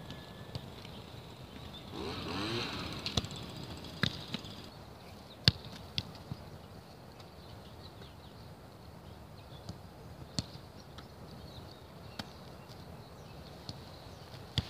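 Rugby balls being kicked: short, sharp thuds of boots striking the ball at irregular intervals, the loudest about five and a half seconds in. A vehicle passes briefly about two seconds in.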